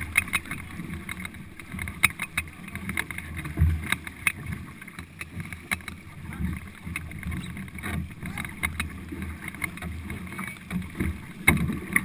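Paddling in a four-person racing canoe: paddle strokes and splashing water, with frequent sharp irregular clicks and knocks over a low rumble of water and movement.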